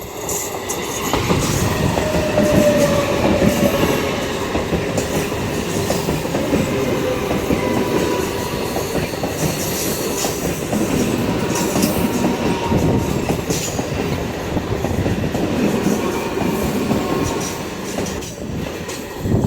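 A passenger train running past close by at speed: a steady rumble and clatter of wheels over the rail joints. It builds up about a second in and drops away near the end.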